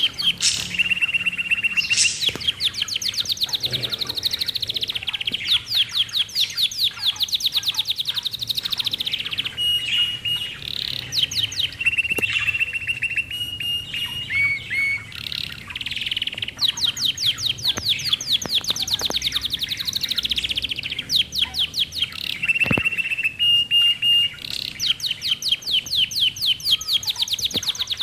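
Budgerigars chirping in long rapid runs of short high chirps, about ten a second, broken several times by steady held whistling notes.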